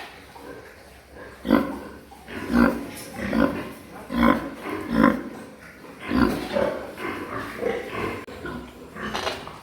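Pigs grunting: a run of short, loud grunts about one a second.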